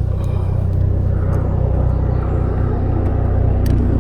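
Police helicopter flying over, a steady, loud low rumble from its rotor and engine.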